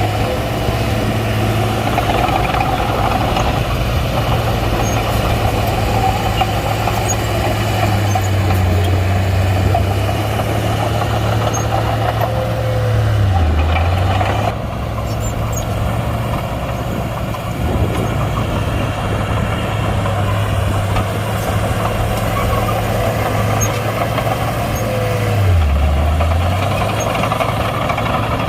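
Komatsu D31-P bulldozer's diesel engine running steadily, dipping briefly in pitch twice, about halfway through and again near the end.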